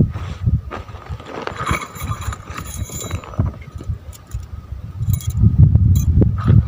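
Strong wind gusting against the microphone, loudest near the end, with a scatter of light, sharp clicks in the middle.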